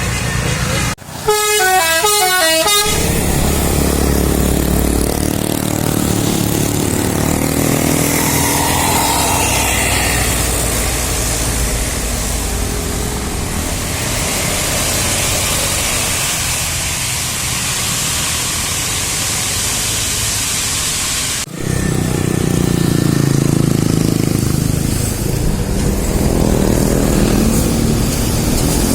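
Bus 'telolet' multi-tone air horn playing a quick stepped melody of rapidly changing notes, followed by the steady noise of bus engines and traffic. The sound breaks off sharply about a second in and again about two-thirds of the way through.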